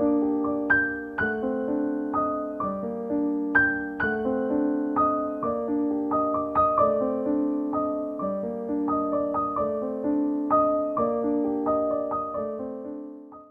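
Background piano music: a gentle melody of evenly paced notes over sustained chords, fading out at the very end.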